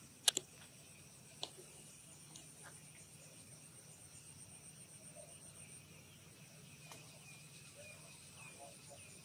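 Insects trilling steadily at a high pitch in the surrounding trees, with a sharp double click a moment in and another click about a second later.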